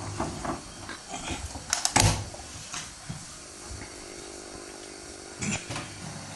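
Samsung WW80J5555FWEU front-loading washing machine on a Delicates 40 °C wash: laundry and water splash and thud in the turning drum, the loudest thud about two seconds in. From about halfway a steady motor hum takes over, with a few more knocks near the end.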